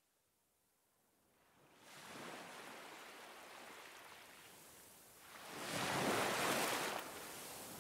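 Ocean surf washing onto a beach, fading up from near silence over the first two seconds, with a louder wave surging in about six seconds in.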